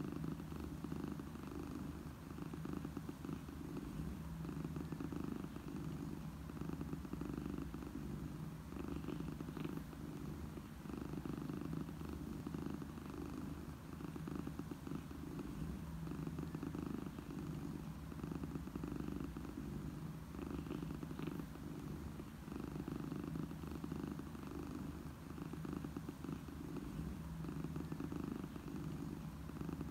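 A domestic cat purring continuously, a low, even purr that swells and eases gently every few seconds: the sound of a contented, happy cat.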